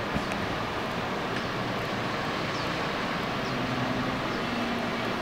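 Steady outdoor background noise, an even rush with no distinct events. A faint low hum joins about three and a half seconds in.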